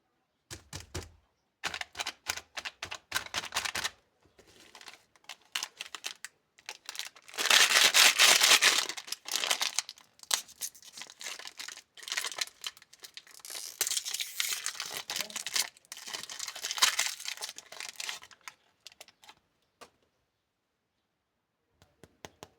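Candy packaging being torn open and crinkled in irregular bursts, loudest about a third of the way in.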